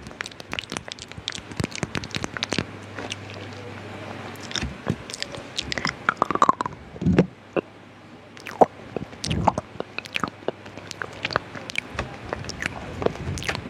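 Close-miked ASMR mouth sounds: rapid, irregular wet clicks and smacks of tongue, lips and saliva, with a brief squeaky sound about six seconds in.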